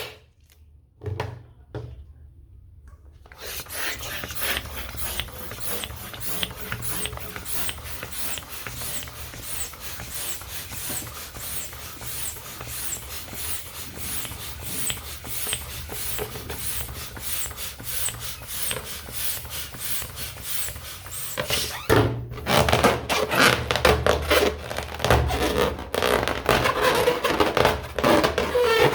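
Rubber balloons being rubbed and handled: a dense run of rapid squeaky friction and rustling that starts a few seconds in and grows louder about three-quarters through, after a couple of short knocks at the start.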